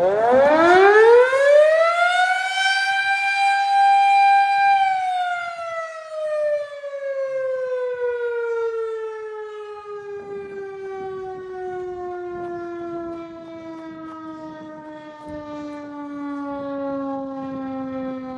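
Erick three-phase mechanical fire siren sounding its 5-second alert test blast. It winds up quickly to a steady wail, holds about two seconds, then winds down slowly in a long falling tone.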